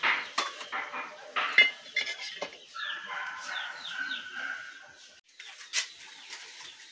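A metal utensil clinks and scrapes against the ember-covered lid of a cast-iron pot, with one sharp clank near the middle of that stretch. Shortly after, a bird gives a few short falling calls over a held note.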